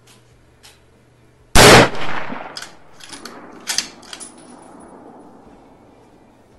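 A single rifle shot from a scoped bolt-action rifle with a carbon-fiber barrel, about a second and a half in, with a ringing, echoing tail. A run of sharp metallic clicks and clacks follows over the next few seconds.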